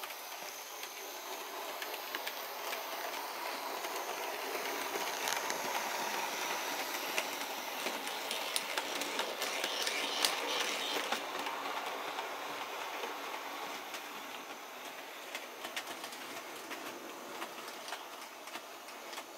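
HO-scale model train, a small electric locomotive hauling a wagon: a steady whir of the motor and wheels on the track with light clicks over the rail joints. It grows louder as the train passes close by about halfway through, then fades as it moves away.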